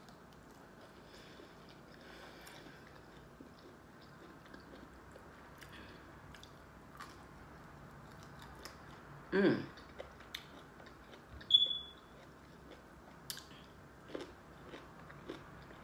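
Close-up chewing and biting of food, including an asparagus spear, with many small wet mouth clicks. A short hum from the eater comes about nine seconds in, and a brief high ping, the loudest sound, about a second and a half later.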